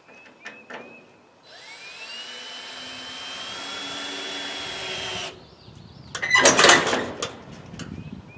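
Cordless drill driving a screw down through corrugated tin roofing into a wooden rafter. The motor's whine rises as it spins up, holds for about four seconds, then stops abruptly. A short, loud metallic clatter follows about a second later.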